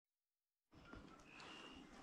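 Silence for the first moment, then faint outdoor ambience. About a second and a half in comes a brief, thin, high whistle.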